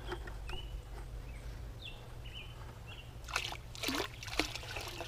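Liquid sloshing in a plastic bucket and splashing as it is tipped into a tub of baking soda, in a few short splashes about three and a half to four and a half seconds in.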